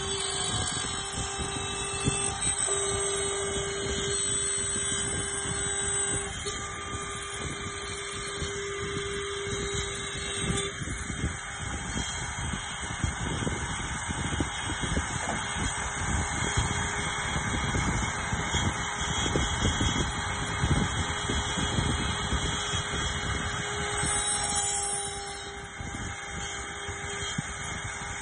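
A CNC router's 1500 W spindle runs with a steady whine while a small engraving bit cuts a star outline into a wooden cylinder turned on the rotary axis. Rough cutting and carriage noise sits underneath. The whine grows fainter about ten seconds in as the cutting noise takes over.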